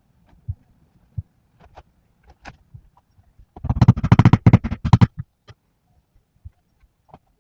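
Small wooden drawer parts being handled and fitted together during a glue-up: scattered single knocks, and a fast rattling run of taps lasting about a second and a half, midway through.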